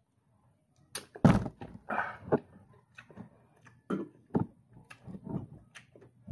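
A loud thunk on the table about a second in, then scattered clicks and soft mouth and hand noises of eating with the hands.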